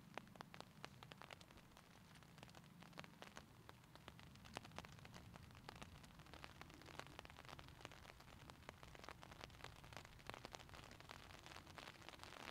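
Light rain falling: faint, irregular raindrop taps, several a second, over a soft low rumble.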